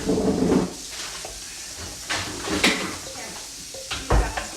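Kitchen clatter of dishes and utensils over a steady hiss, with a heavy thump about four seconds in and brief bits of voices.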